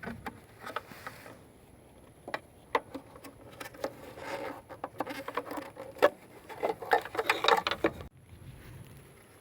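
Irregular plastic clicks and rattles from handling a removed Jeep Wrangler JK taillight assembly, coming in short clusters, with the sound cutting off suddenly about eight seconds in.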